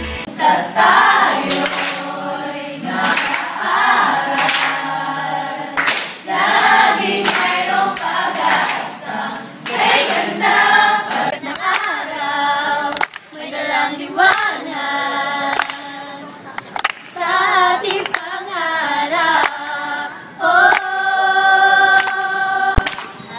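A mixed group of young voices singing a song together, with hand claps between phrases, ending on a long held note.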